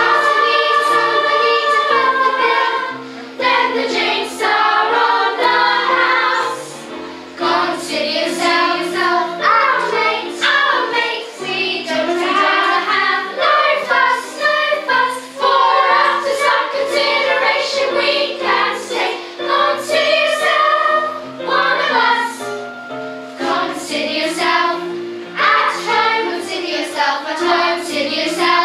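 Children's choir singing a song together in phrases.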